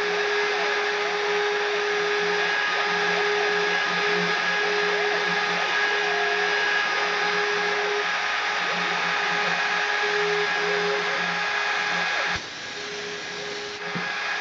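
Desktop CNC milling machine running, its spindle and axis motors giving a steady motor whine with several held tones. About twelve seconds in the level drops suddenly for about a second and a half, then comes back.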